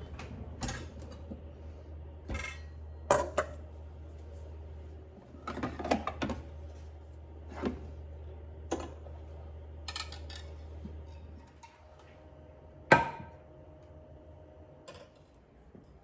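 Scattered metallic clinks and knocks of kitchen hardware being handled, such as range-hood and exhaust-fan parts, over a low steady hum that stops about 11 seconds in; the sharpest knock comes near 13 seconds.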